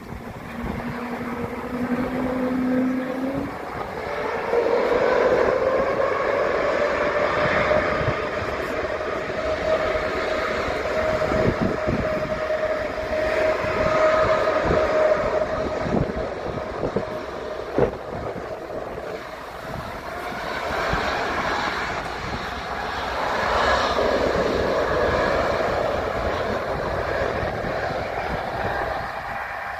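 Twin turbofan jet airliner on its takeoff roll, engines at high thrust: a steady engine tone that rises in pitch about four seconds in as the engines spool up, then holds. Wind gusts on the microphone.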